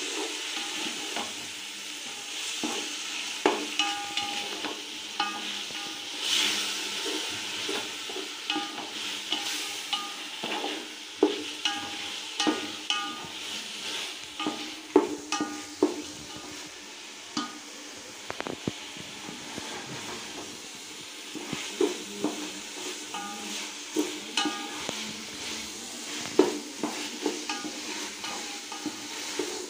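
Onions, green chillies and freshly added chopped tomatoes sizzling in oil in a metal pot while a spoon stirs them, scraping and knocking irregularly against the pot's sides. The knocks are the loudest sounds. This is the tomato-sautéing stage of a biryani masala.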